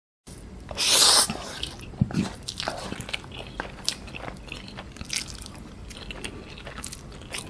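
Close-up eating sounds of Samyang cream carbonara ramen noodles: a loud slurp about a second in, then steady chewing with many small wet clicks and crunches.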